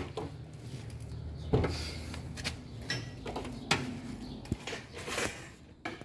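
Scattered light knocks and clicks of hands handling the plastic control panel housing of a washing machine, opened for the control board to be replaced.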